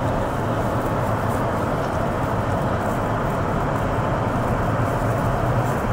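Steady engine and tyre noise of a car driving slowly on a snow-covered road, an even rumble with no distinct events.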